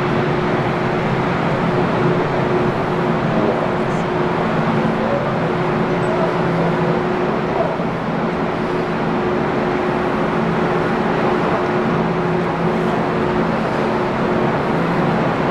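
Steady machine noise: a constant rumble with a low hum of a few steady tones, level throughout.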